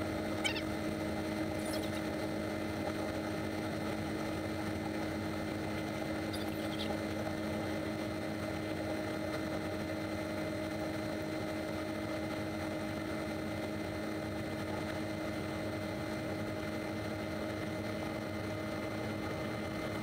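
Combine harvester running while its unloading auger pours shelled corn into a grain cart: a steady mechanical hum with several held tones. A few faint, short, high squeaks come in the first seven seconds.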